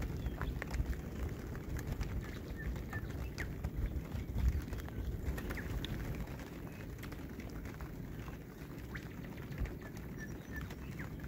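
Wind rumbling on the microphone and water lapping at the bow of a small sailing dinghy under way, with scattered small ticks and splashes and a few faint bird chirps.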